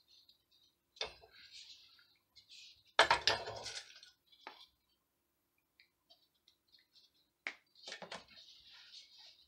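Tools and small objects clattering on a workbench while a balsa dowel is handled, with a loud, quick run of knocks and rattles about three seconds in and further knocks and scrapes near the end.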